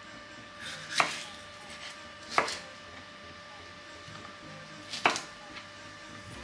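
Kitchen knife cutting a pointed sweet pepper into pieces on a plastic cutting board: sharp knocks of the blade striking the board about one and two and a half seconds in, then one more knock about five seconds in.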